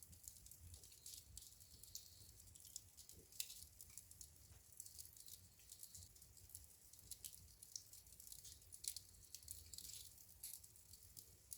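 Wood fire crackling in a fireplace: faint, irregular small pops and snaps over a soft low rumble of flame, with sharper snaps about three and a half and nine seconds in.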